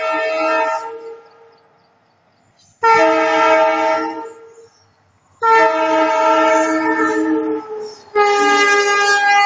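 WDP4 diesel locomotive's horn sounding in long, loud blasts. One blast ends about a second in, then three more start at about three, five and a half and eight seconds in. The last is on a higher chord and runs on past the end.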